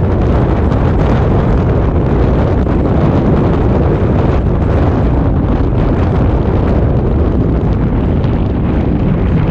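Wind buffeting the microphone of a camera mounted on the outside of a moving vehicle: a loud, steady rush, mostly low, mixed with road and engine noise.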